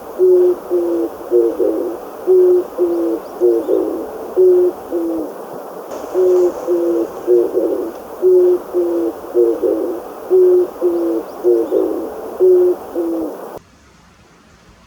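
Oriental turtle dove (キジバト) singing its low, hooting cooing song, the same short phrase repeated over and over at a steady pace. It stops abruptly near the end.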